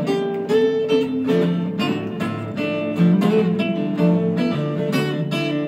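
Acoustic guitar played solo, picking a running line of single notes mixed with chords, each note ringing briefly before the next.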